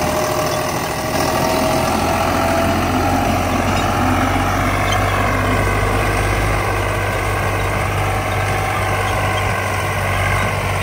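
Tractor diesel engine running steadily under load while towing a stalled tractor whose battery has died, to try to start it by pulling. The engine note rises a little over the first few seconds, then holds.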